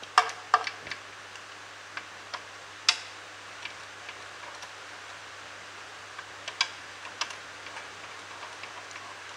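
Scattered metallic clicks and clinks of a spanner on bolts and loose bolts being handled as the bolts on a tractor gearbox's bearing-support cover are undone. The sharpest knocks fall shortly after the start, about three seconds in and near seven seconds, over a faint steady hum and hiss.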